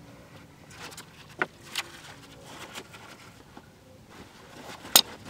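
Thin stream of used engine oil running from a lawn mower's open drain hole into a drain pan, with scattered ticks and a sharp click about five seconds in.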